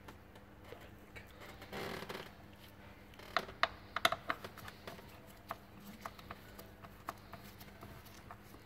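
Faint small clicks and taps of a Torx screwdriver and gloved hand working at the screws that hold the engine control unit, with a short rustle about two seconds in and the sharpest clicks clustered around three to four seconds in.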